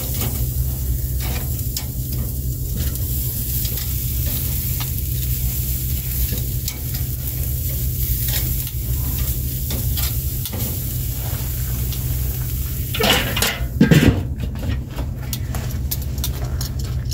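Steaks sizzling on the hot grate of a Weber charcoal kettle grill, with scattered light clicks of metal tongs against the grate. About thirteen seconds in comes a louder metallic clatter as the kettle lid is handled and put on.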